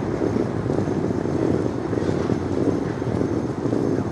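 Steady low rumble of outdoor city ambience with no distinct events.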